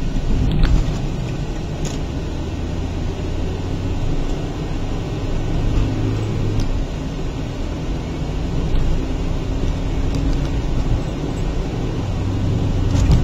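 Car interior noise while driving: a steady low rumble of engine and road, with a few faint clicks.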